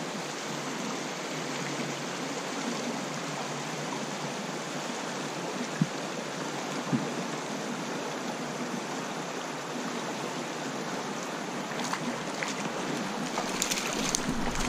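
Small stream running over a rocky riffle, a steady rushing of water. A couple of faint knocks come about six and seven seconds in, and a few short splashes near the end.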